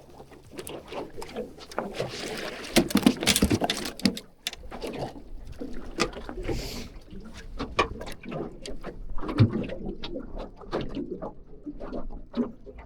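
Irregular knocks, clicks and clatter on a small fishing boat as catches and gear are handled, with a louder burst of clatter about three seconds in and brief muffled voices.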